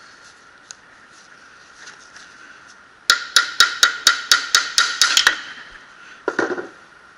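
Hammer striking the output-shaft bearing housing of a Jaguar XJ differential in a quick run of about ten sharp metallic blows, roughly four or five a second, knocking the shaft and its bearing cage out of the case. A single duller, lower thump follows about a second later.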